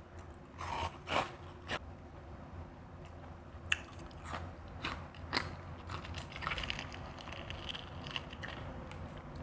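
Refrozen crushed ice being bitten and chewed: three sharp crunches in the first two seconds, four more single crunches a few seconds later, then a run of finer, crackly chewing.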